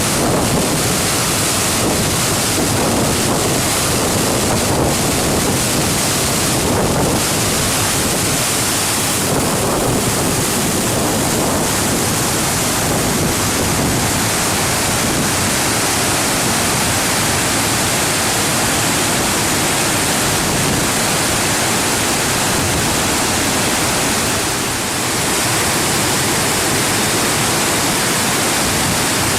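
A waterfall's falling water, a loud, steady rush.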